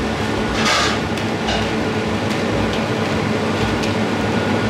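Steady mechanical hum and rumble of ventilation machinery, with a short hiss a little under a second in and a few faint clicks.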